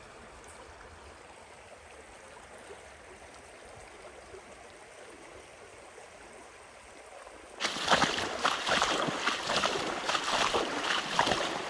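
Shallow creek flowing faintly and steadily; about two-thirds of the way in, wading boots start splashing loudly through the water with each step.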